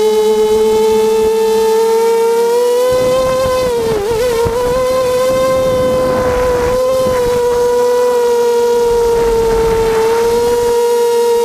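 Blackout Mini H quadcopter's electric motors and propellers whining, recorded by the camera on board: a steady high hum with many overtones. Its pitch dips and wobbles about four seconds in as the craft drops low. A rushing wind noise joins it from about three seconds in and drops away near the end.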